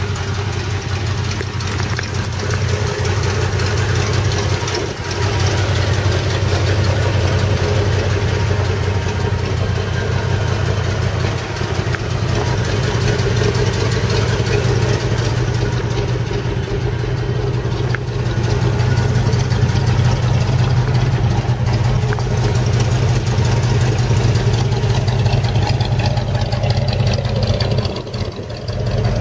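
1971 GMC half-ton pickup's 350 cubic-inch V8, breathing through dual exhaust, idling steadily.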